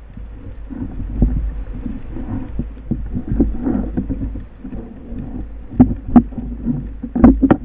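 Muffled water sloshing and splashing heard through an underwater camera's housing near the surface, with irregular knocks and several sharp clicks near the end.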